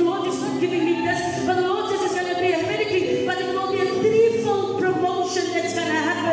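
Voices singing, with a woman's voice praying loudly into a microphone over them.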